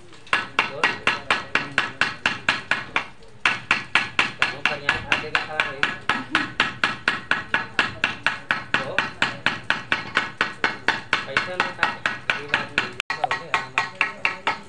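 Small hammer striking the steel end fitting of a hand-pump cylinder pipe in quick, even blows, about four a second, each with a metallic ring. There is a brief pause about three seconds in.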